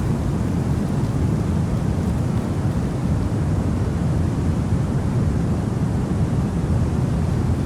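Steady sleep-aid noise track: an unchanging deep rushing hiss, heavier in the low end than in the highs.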